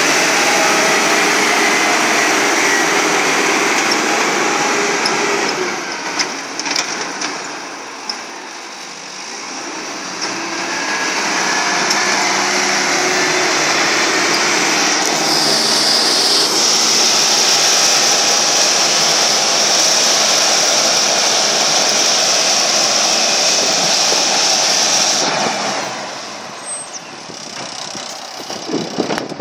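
International 530 excavator running at working revs, a steady loud engine-and-machine noise. It eases off about a third of the way through, builds back up, and drops again near the end, with a few short knocks in between.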